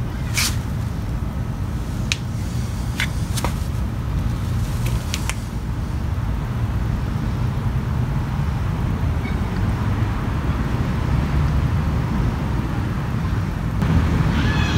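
Steady low background rumble, with a few short sharp ticks in the first five seconds.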